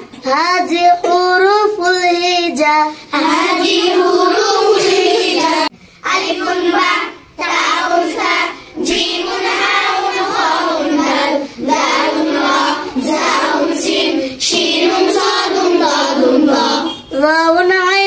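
A group of young girls singing an Islamic gazal together without instruments, in phrases separated by short pauses for breath.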